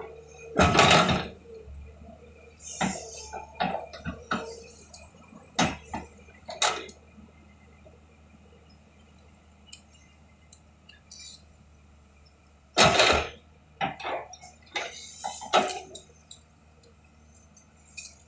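Irregular clattering knocks of hard objects against each other: a loud clatter about a second in, a run of smaller knocks, a quiet stretch, then another loud clatter followed by a few more knocks.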